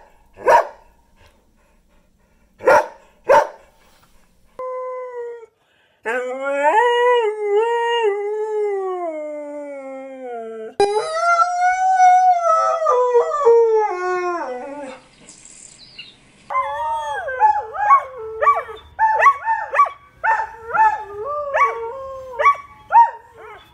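Dogs rooing: first a few short sharp yips from a greyhound still learning to roo, then two long wavering howls that slide down in pitch at their ends. Near the end an ice cream truck's jingle plays as a quick run of repeated notes over a low hum, with greyhounds rooing along to it.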